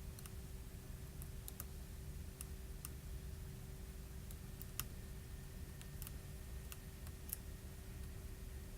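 Scattered light clicks and taps, about a dozen at uneven intervals, from small repair tools and phone parts being handled while an iPhone 6 Plus battery is worked loose, over a low steady hum.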